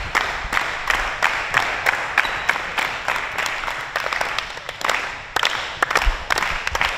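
Basketballs bouncing on a gym floor during practice drills: many irregular thuds, a few a second, over a steady hubbub of gym noise.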